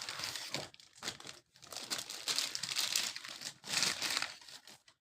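Packaging crinkling and rustling in several irregular bursts as a heavy motorcycle exhaust silencer is handled and unwrapped.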